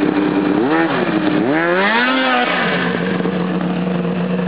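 Two-stroke snowmobile engine with an aftermarket exhaust idling, blipped briefly just under a second in and then revved higher and let fall back, settling to a steady idle.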